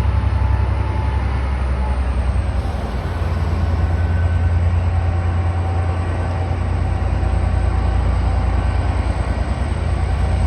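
Coal train passing on the rail line: a loud, steady low rumble of locomotive and wagons, with faint steady whining tones above it.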